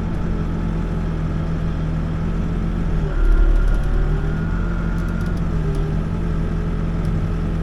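Backhoe's diesel engine running steadily during digging work. About three seconds in its note dips and gets louder for a second or so, with a thin high whine over it for about two seconds.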